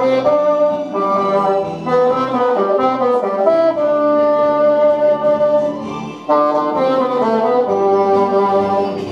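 Bassoon playing a slow, smooth melody of held notes, with one long sustained note in the middle and a short break about six seconds in.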